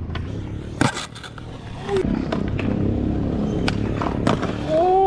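Skateboard tricks on concrete: a sharp clack of a board popping or landing about a second in, wheels rolling, with a few more clacks later. Near the end a person lets out a loud shout that rises and then falls.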